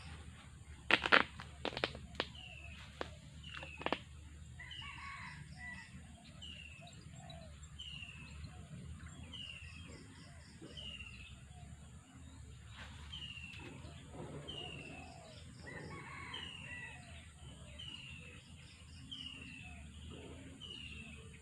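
A bird calling over and over, a short falling high note about once a second, against steady outdoor background noise. A few sharp clicks and knocks come in the first four seconds.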